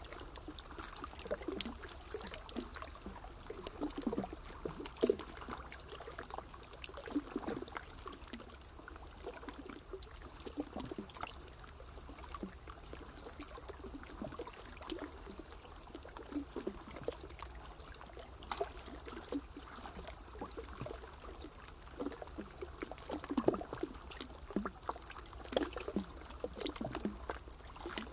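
Water trickling, with many small irregular splashes and drips over a low steady hum.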